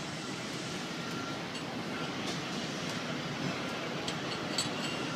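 Steady background noise, like distant traffic or machinery, with a couple of faint clicks.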